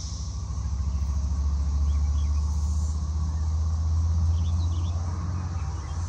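A low rumble that swells and fades, loudest midway, over a steady chorus of cicadas.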